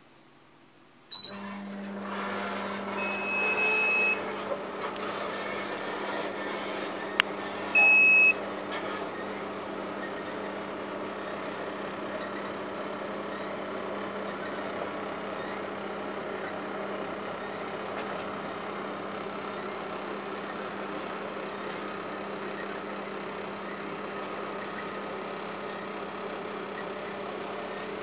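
Panasonic NE-1880 commercial microwave oven starting up about a second in with a click, then running with a steady electrical hum and fan noise. Two short electronic beeps sound a few seconds apart soon after it starts.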